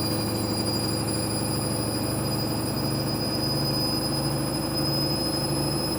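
Washing machine on its spin cycle: the motor runs steadily with a high whine over a low hum, and the hum begins to pulse about twice a second from about halfway.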